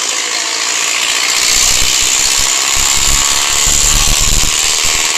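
Motorcycle engines running, with a loud, steady hiss of noise and a deeper rumble that swells through the middle seconds; the sound cuts off suddenly at the very end.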